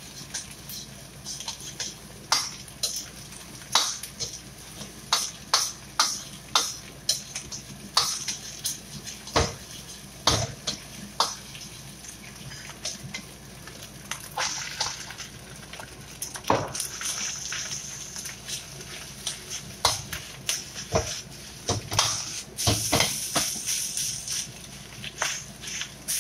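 Metal ladle clacking and scraping against a stainless-steel wok as egg and rice are stir-fried, over a steady sizzle.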